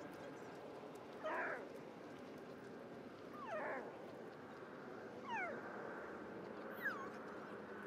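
An animal's cries: four short calls, each sliding down in pitch, about two seconds apart, over a steady background hiss.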